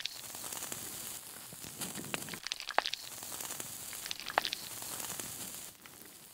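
Plastic melting under heat: a soft, steady sizzling hiss with scattered small crackles and pops. It cuts off suddenly near the end.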